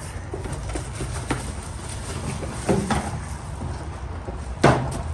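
Unboxed parts and packaging being handled: a light click and a few short rustles over a steady low hum, with the loudest, briefest sound near the end.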